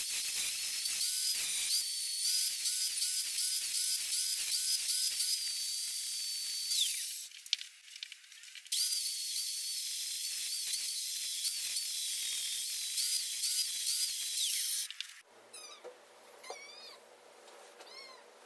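Angle grinder with a sanding disc grinding rust off a cast-iron car brake disc: a loud hissing whine that wavers as the disc is pressed on. It breaks off briefly about seven seconds in, and stops for good about fifteen seconds in, leaving only faint sounds.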